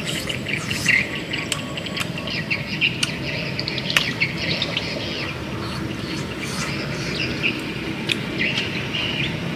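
Small birds chirping in short repeated calls over a steady outdoor background hum, with a few sharp clicks along the way.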